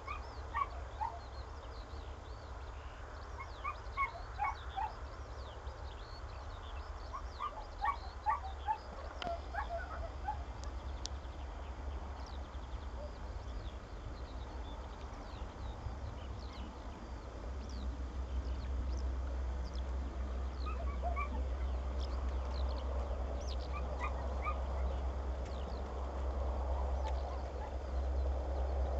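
Short animal calls in quick clusters of several notes, heard a few times, over a steady low rumble that grows louder in the second half.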